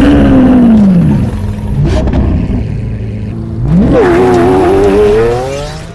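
Car engine revving: the pitch climbs and falls away over the first second and a half, then climbs again from about four seconds in and holds with a slight waver before fading out at the end.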